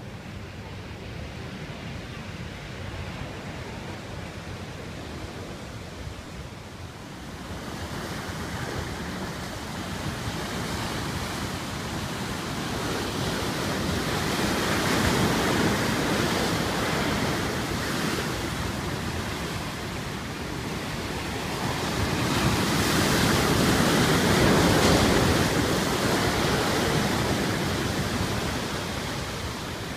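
Sea waves breaking against rocks and churning into foam around them: a steady roar that swells loud twice, about halfway through and again near the end, with wind rumbling on the microphone.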